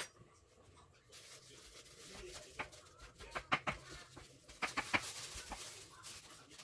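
Kitchen knife chopping cooked chicken meat on a bamboo cutting board: a scattering of sharp, irregular taps, bunched in the middle of the clip.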